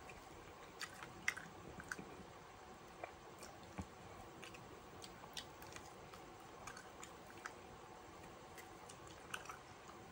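A person chewing a barbecue chicken wing with mouth close to the microphone: faint, with scattered short wet clicks and smacks.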